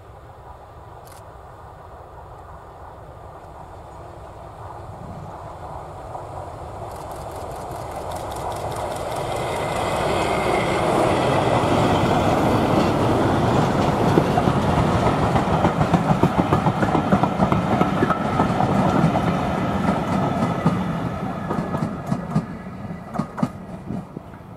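Diesel locomotive hauling a train of passenger coaches, growing louder as it approaches and passes close by, then fading. Near the end the coach wheels click over the rail joints as the last of the train rolls away.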